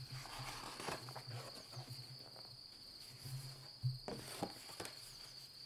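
A paperback picture book being handled and opened: rustling of the cover and pages, with a couple of sharp taps about four seconds in. Behind it a cricket trills in one steady high tone.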